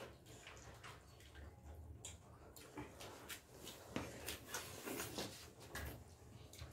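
Forks and spoons clicking and scraping on plates, with soft chewing and eating sounds, as people eat momos at a table.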